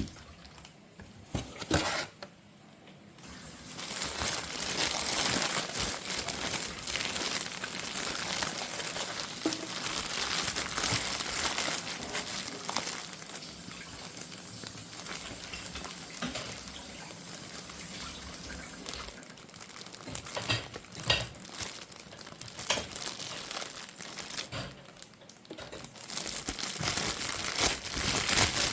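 Panettone packaging crinkling and rustling as it is handled and unwrapped, with scattered clicks and taps in between.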